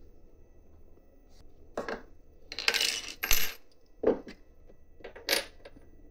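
Small metal parts clinking and clattering against a hard surface in about five short bursts, the loudest a little after three seconds in.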